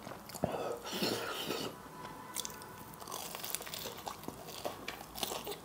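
Close-miked eating: mouth chewing sounds, then a crunchy bite into the breadcrumb crust of a Bengali egg devil (egg chop), with irregular crackles as it is chewed.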